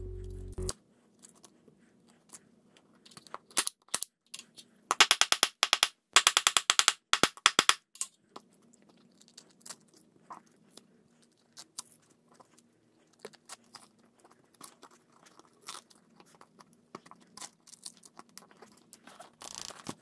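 Hook-and-loop (Velcro) straps being handled, pulled apart and pressed closed: scattered small clicks and rustles, with two quick rasping rips about five to eight seconds in.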